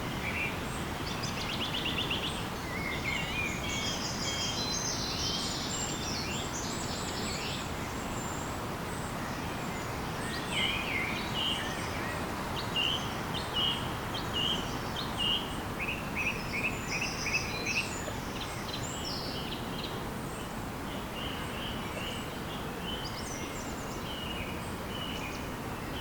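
Several birds chirping and calling over a steady rushing background noise, with a run of short, evenly repeated chirps in the middle.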